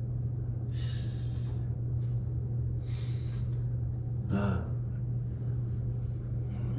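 A woman crying: two sharp, shaky breaths drawn about one and three seconds in, then a short sob about four and a half seconds in, over a steady low hum.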